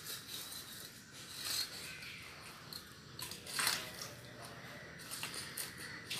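A stainless steel dog bowl scraping and clinking on paving tiles as a puppy noses and pushes it around. It comes as a few short, separate scrapes, the loudest a little past the middle.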